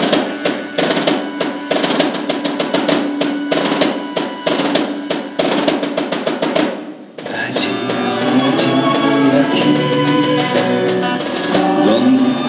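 Snare-type drums playing a fast, dense roll that stops abruptly about halfway through. Pitched instruments then take over with sustained notes, an acoustic guitar and violin opening the song's intro.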